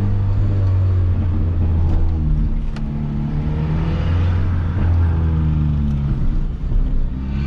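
Peugeot 206 1.4 four-cylinder with a straight-through exhaust (just the pipe, no muffler) running on the road, its pitch rising and dropping a few times as it pulls through the gears. The exhaust note is thin and raspy under acceleration rather than deep.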